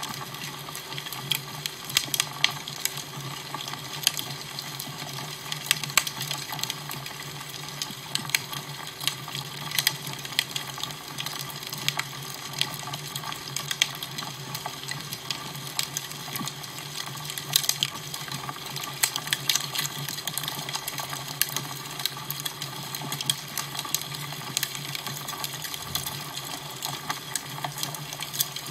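Fire crackling: irregular sharp pops and snaps scattered over a steady hiss and a low, even hum.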